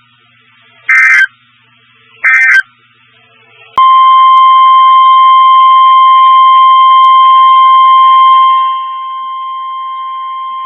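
Emergency Alert System SAME header: two short screeching digital data bursts, followed by the single steady high-pitched alert tone of about 1050 Hz used on NOAA Weather Radio. The tone gets noticeably quieter near the end. It marks the start of a tornado warning.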